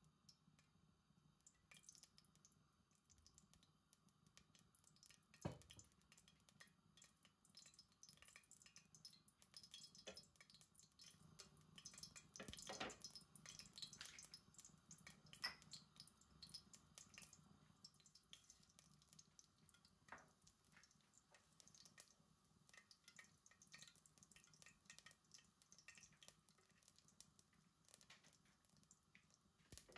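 Faint dripping and small wet clicks, with a few soft knocks about five, thirteen and twenty seconds in.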